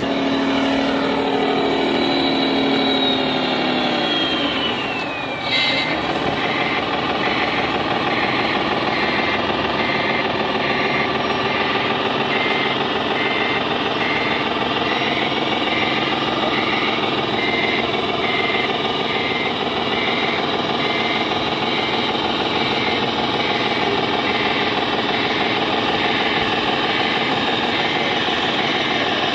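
Scale RC truck running with its sound module playing a diesel engine, a falling whistle in the first few seconds, then a reversing beeper beeping about once a second.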